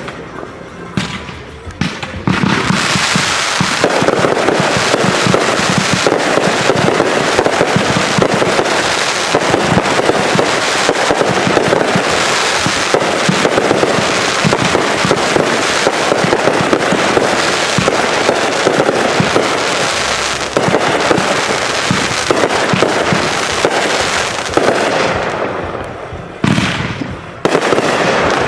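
Backyard consumer fireworks going off in a dense, continuous barrage of rapid bangs and crackling, starting about two seconds in and lasting some twenty seconds, then thinning to a few separate bursts near the end.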